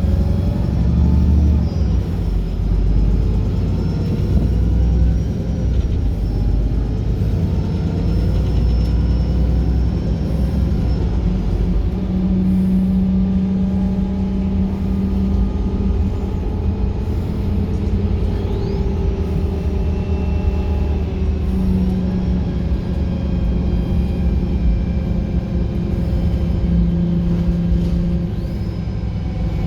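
Wright Pulsar single-deck bus running, with a heavy engine rumble and drivetrain whine that rise and fall as the bus speeds up and slows.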